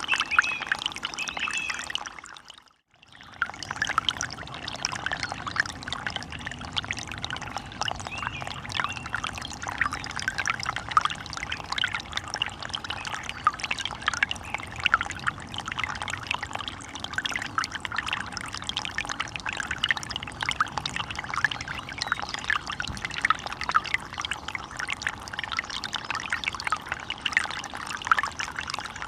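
Running water babbling and trickling, a dense bubbling wash. It cuts out completely for about a second near the three-second mark, then resumes at the same level.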